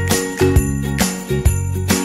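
Background music: an upbeat track with jingling bells over sustained notes and a steady beat of about two strokes a second.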